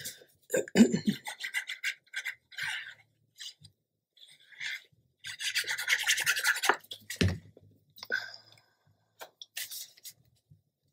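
Paper and cardstock being handled, rubbed and pressed down by hand, with short rustles and scrapes and one longer rub near the middle. Two soft knocks, about a second in and about seven seconds in.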